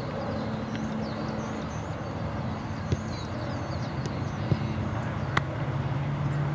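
Open-field outdoor ambience: a steady noise bed with a low steady hum and small high chirps, broken by a few sharp knocks of a soccer ball being kicked, the loudest just after five seconds in.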